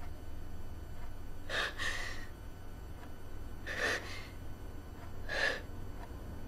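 A person's breath drawn in sharply three times, about a second and a half apart: gasping breaths over a low steady hum.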